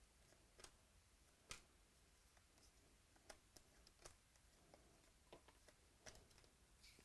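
Near silence with a few faint, scattered clicks and ticks of trading cards and their packaging being handled.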